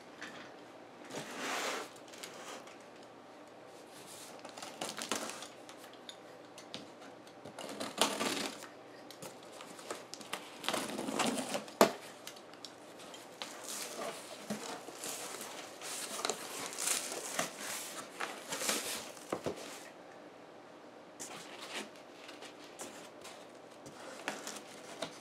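Cardboard shipping box being opened by hand: packing tape pulled loose and the flaps lifted and folded back, in irregular rustling and scraping bursts with a sharp click about halfway through.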